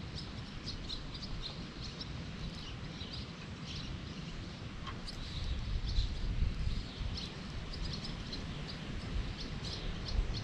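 Small birds chirping repeatedly, short high calls scattered throughout, over a low rumble that swells about six seconds in.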